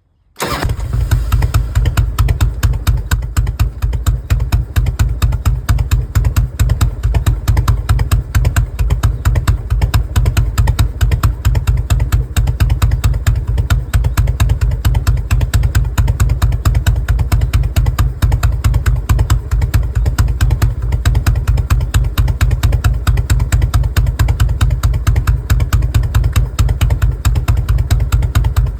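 1994 Harley-Davidson FLSTN Softail's 1340 cc Evolution V-twin fires up suddenly and settles into a loud, lumpy idle, the uneven three-beat rhythm, breathing out through Bassani dual pipes with Brass Glide mufflers fitted with 12 mm inner silencers.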